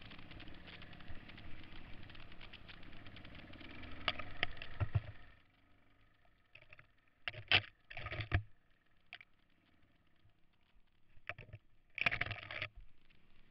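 Onboard sound of a 1974 Honda XL 350 single-cylinder four-stroke trail bike on a rough dirt trail. Engine and wind noise run for about five seconds and swell just before dropping away. A much quieter stretch follows, broken by a few sharp knocks and clattering jolts from bumps.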